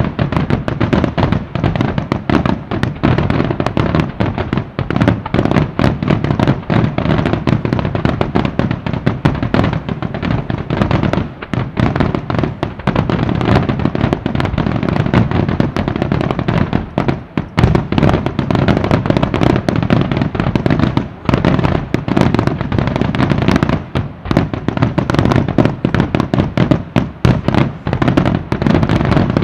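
Dense fireworks barrage: a rapid, unbroken run of overlapping bangs and crackles from many shells bursting at once.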